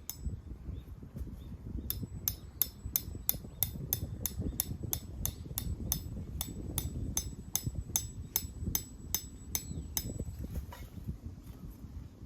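A tent peg being driven into the ground with a hammer: a steady run of sharp strikes, about three a second for some eight seconds, over a low rumble.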